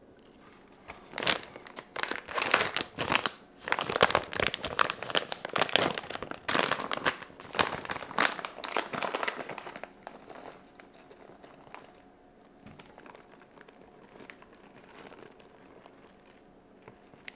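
Plastic bag of shredded mozzarella crinkling loudly as it is handled and opened, then quieter crinkling from about ten seconds in as the cheese is shaken out of it.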